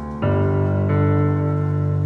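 Background music with sustained keyboard chords; a new chord comes in about a quarter second in and holds.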